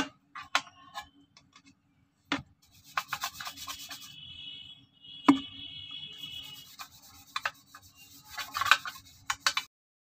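Toothbrush bristles scrubbing a plastic washing-machine cover panel in rapid back-and-forth strokes, with a few sharp knocks as the plastic is handled, the loudest about five seconds in. The sound cuts off just before the end.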